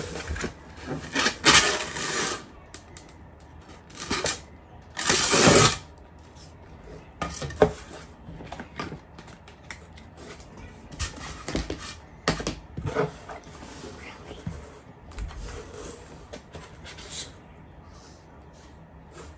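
Unboxing handling noise: cardboard box flaps and clear plastic packing pieces being pulled out and rustled, with small clattering knocks. The loudest bursts of rustling come in the first six seconds, then lighter scattered handling.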